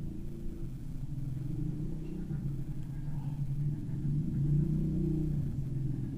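A low, steady engine-like rumble that swells slightly about four to five seconds in.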